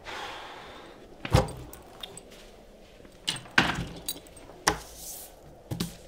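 Desk items handled on a wooden table: a handful of sharp clicks and knocks, with a soft paper-like rustle at the start and another about five seconds in.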